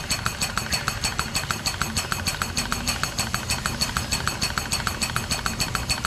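Air-driven pump running with a quick, even pulsing stroke, sucking contaminated diesel sludge out of a truck's fuel tank.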